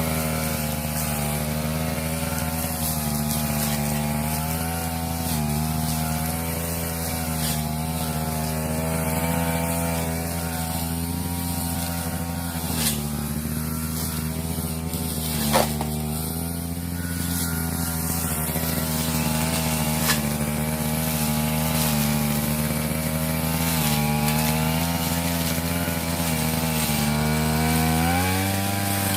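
Brush cutter with a propeller-type blade running steadily while cutting cogon grass, its engine note dipping and recovering slightly under load and rising near the end. A few sharp ticks come through around the middle as the blade strikes something.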